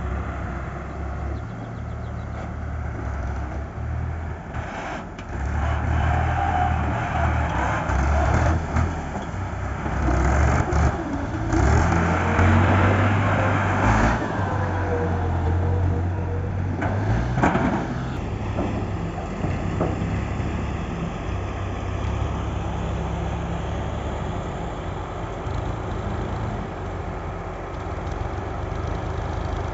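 Excavator's diesel engine running, with its pitch and loudness rising and falling as it works under load, and several sharp metallic clanks scattered through.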